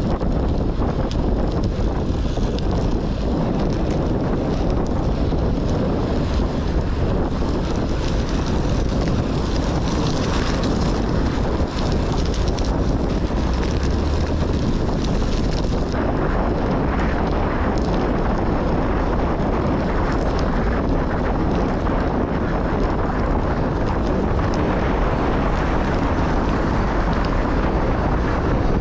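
Wind buffeting a GoPro's microphones as a road bike is ridden at about 25–29 km/h: a steady, unbroken rush of noise. The furniture-pad windscreens on the mics are badly stuck on, so there is more wind noise than there should be.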